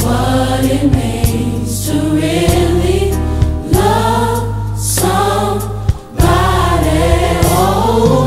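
Gospel choir music: several voices singing over a steady, sustained low accompaniment, with a brief drop in sound about six seconds in.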